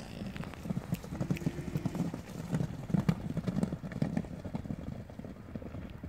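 Herd of young American Paint Horses galloping on grass turf: a dense, irregular drumming of many hoofbeats that grows weaker near the end as the herd runs off.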